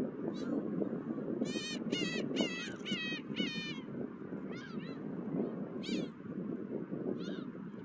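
Gulls calling: a quick run of yelping, mewing calls, then single calls spaced a second or so apart, over a steady low rush of wind.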